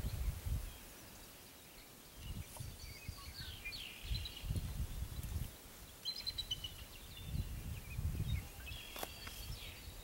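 Birds chirping in three short bouts, over irregular low gusts of wind buffeting the microphone.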